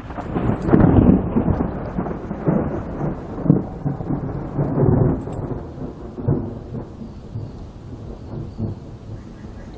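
Thunder from a tropical thunderstorm: a low rumble that swells about half a second in, loudest around a second in, then rolls on in several surges before dying away over the last few seconds.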